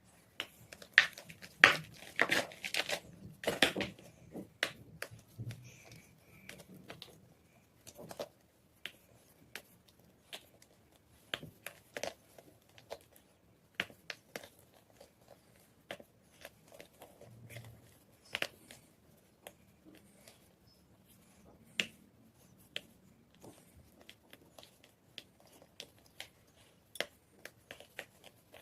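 White gym chalk crunching: a dense run of crunches over the first few seconds, then scattered single sharp crackles.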